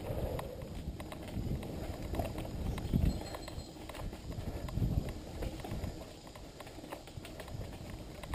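Mountain bike ridden over a rough dirt singletrack: tyres on packed dirt with a low rumble, and frequent clicks, knocks and rattles as the bike jolts over bumps, a few heavier jolts among them.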